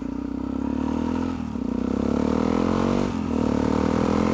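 Yamaha XT660X single-cylinder motorcycle engine accelerating through the gears: its pitch climbs steadily, drops at an upshift about a second and a half in, climbs again, and drops at a second upshift about three seconds in before pulling up once more.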